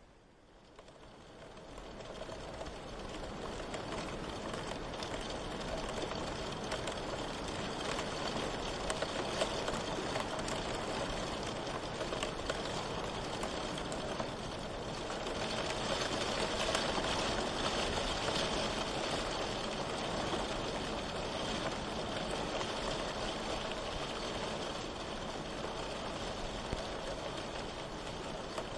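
Steady rain hiss, fading in over the first few seconds and swelling a little about halfway through.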